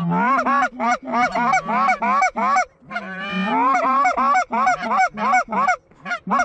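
Goose call blown rapidly: a fast run of honks and clucks, about three or four a second, each note breaking from a low grunt up into a high honk, with a short pause near the middle. This is calling to bring an approaching flock of geese in over the decoys.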